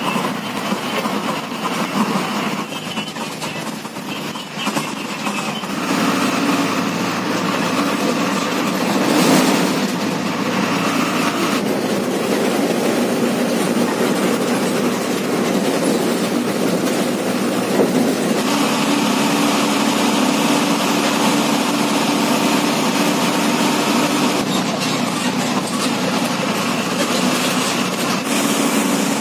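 State-transport bus's diesel engine running and tyre noise, heard from inside the bus while it drives along the road. The engine's hum changes pitch a few times.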